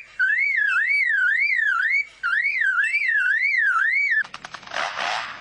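Lyrebird mimicking a car alarm: a loud electronic-sounding whistle sweeping up and down about twice a second, in phrases with short breaks. Near the end it switches to a rapid run of clicks and a harsh, noisy burst.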